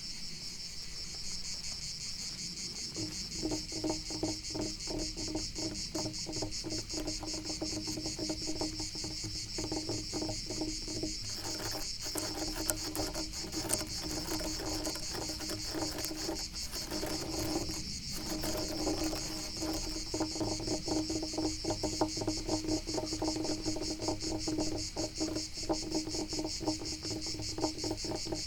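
Crickets chirping steadily. About three seconds in, rapid scratching on a wooden surface joins them and goes on in dense strokes, with short pauses partway through.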